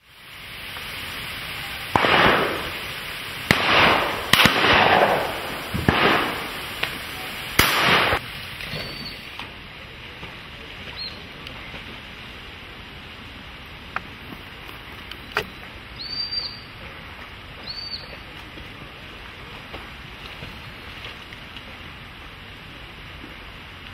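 Shotgun shots, about five in quick succession over six seconds, each trailing off in an echo. Then a quieter stretch of outdoor background with a few short, high bird chirps.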